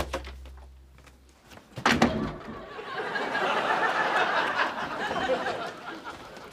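The low end of the transition music fades out. About two seconds in comes the clatter of a wooden office door being opened, then a few seconds of studio audience laughter.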